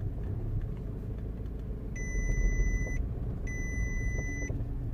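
Audi A3 hatchback pulling away and rolling slowly, a low rumble from the running car. Over it an electronic beep sounds three times, each about a second long and evenly spaced.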